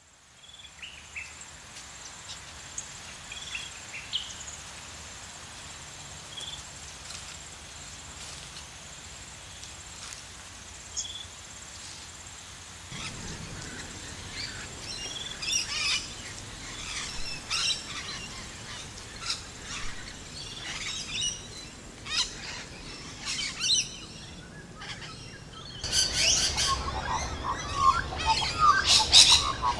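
Wild birds chirping and calling over a steady faint high tone, sparse at first and thickening into a dense, louder chorus near the end. A low background rumble joins about halfway.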